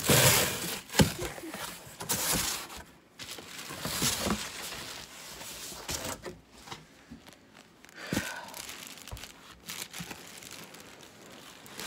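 Plastic packaging crinkling and rustling as a bag is unwrapped and handled. A few sharp knocks come through, about a second in, about four seconds in and about eight seconds in.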